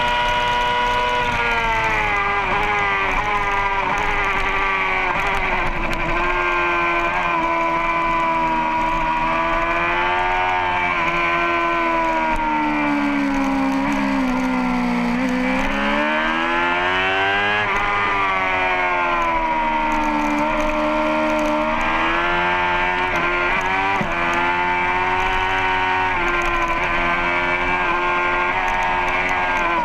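Racing motorcycle engine running hard on track, its pitch rising and falling as the rider accelerates, shifts and slows for corners; it drops low about halfway through, then climbs steeply as the bike drives out of the turn.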